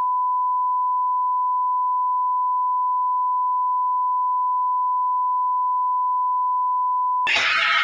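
A single steady electronic beep tone, a pure high tone like a broadcast test tone or bleep, held unchanged for about seven seconds. It cuts off abruptly near the end as other audio begins.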